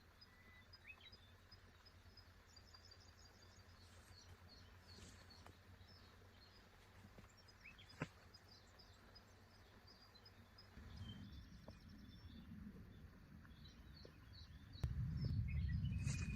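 Forest ambience: small birds chirping and calling over a low steady hum. A single sharp click comes about halfway. A louder low rustling starts after about eleven seconds and grows louder near the end.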